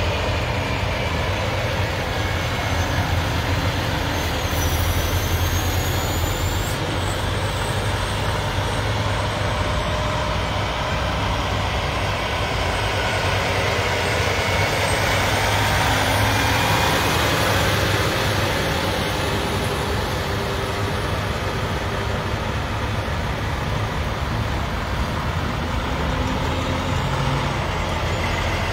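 Heavy tow trucks driving past one after another, a steady low engine rumble with road noise.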